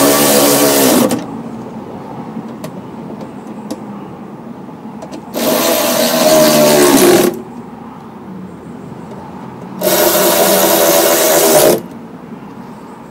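Cordless impact gun running down bolts in three bursts of about two seconds each, roughly four seconds apart, the first stopping about a second in. Small clicks of handling the hardware in the gaps.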